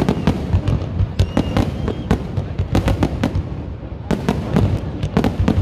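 Aerial firework shells bursting in quick, irregular succession: sharp cracks over a constant low rumble, easing briefly about four seconds in before picking up again.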